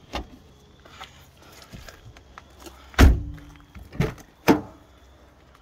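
A 1985 Toyota Camry's car door shutting with a loud thunk about three seconds in, followed by two sharper knocks about a second apart from the door and its latch; a couple of lighter clicks come earlier.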